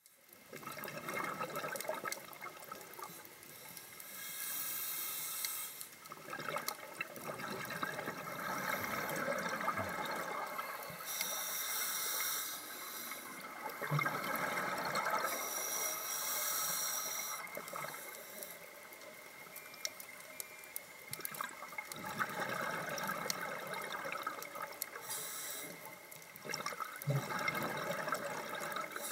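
Scuba breathing heard underwater: short hissing inhalations through a regulator alternate with longer gurgling rushes of exhaled bubbles, repeating every few seconds.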